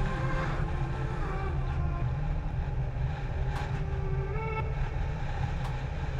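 City bus running: a steady engine and road rumble with no sudden events.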